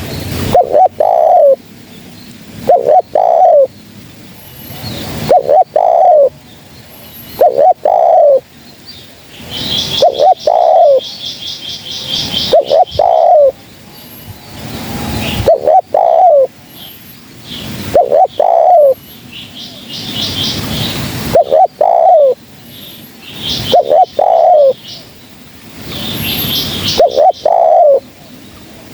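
Spotted dove (terkukur) cooing over and over, a short phrase of two or three falling coos about every two and a half seconds. A small bird's rapid high chirping joins now and then, most plainly around a third of the way in and again near the end.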